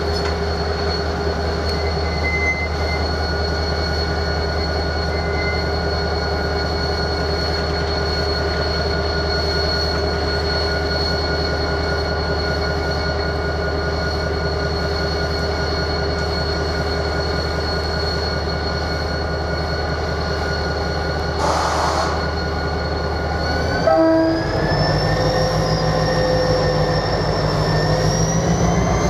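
Renfe 333.3-class diesel-electric locomotive running at low speed on a shunting move, its engine drone steady with a high whine over it. About four-fifths in there is a short loud toot, then the engine revs up and the whine climbs in pitch.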